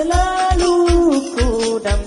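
Qasidah, an Islamic devotional song praising the Prophet, sung in long held notes that step between pitches, over a steady low drumbeat.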